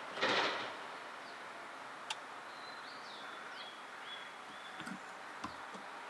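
A small songbird singing a series of short, high, falling whistled notes over a faint steady hiss, after a brief loud rushing burst at the very start.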